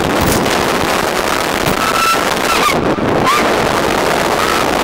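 Loud rushing wind buffeting the microphone of a camera mounted on a reverse bungy capsule as it is flung through the air at speed, with a few short high cries from the riders.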